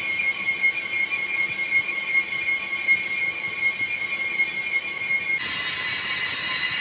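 Lathe tool bit squealing as it cuts a spinning cast iron truck brake drum: a loud, steady high-pitched squeal that shifts to a slightly lower pitch near the end.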